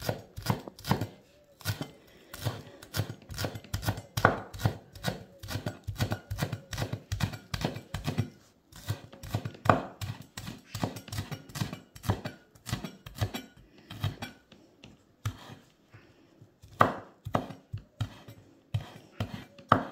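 Chef's knife finely chopping green onions on a wooden cutting board: a quick, steady run of knife strikes, several a second, with a few short pauses.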